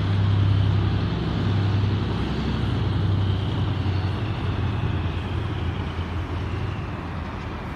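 GEK diesel-electric locomotive running under load while it hauls a train of cement wagons: a steady low drone that slowly fades.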